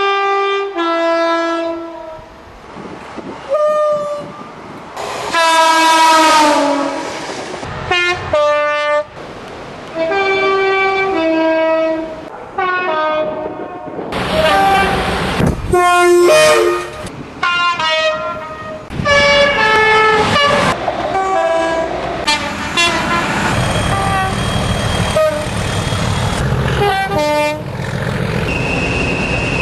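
A run of British train horns sounding one after another, mostly two-tone blasts that step from a high note down to a lower one. Train running noise sits between and under the blasts, heavier in the last few seconds.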